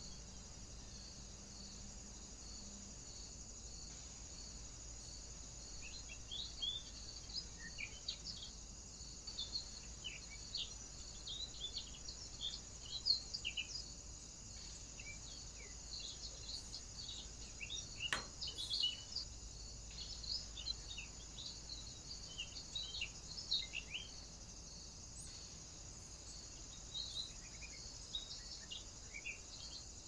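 A steady high-pitched insect drone of summer woodland, with many short, high bird chirps and calls scattered over it from about six seconds in.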